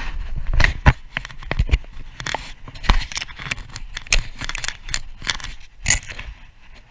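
Close handling noise from a body-worn camera: irregular scrapes, sharp clicks and jacket fabric rustling against the microphone as the wearer moves and walks.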